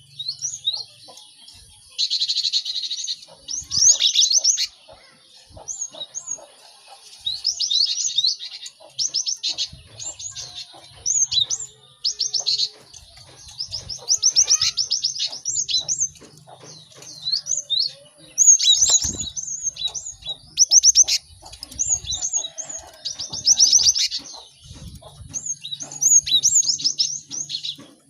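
Cinereous tits (gelatik batu) calling busily: short bursts of rapid, high chirping notes, repeated over and over with brief pauses in between.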